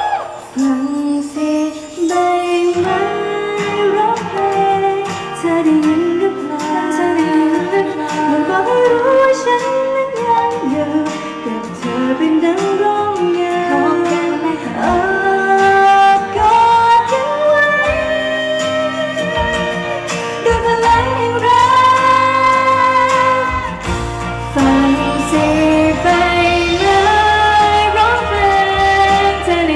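Pop song played loud through a stage sound system: a wavering melody line over a full backing track, with the bass growing heavier near the end.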